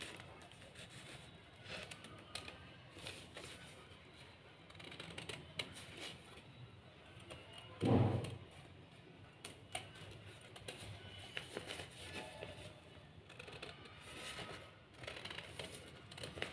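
Scissors cutting through paper: faint, scattered snips and paper rustling, with one louder dull thump about eight seconds in.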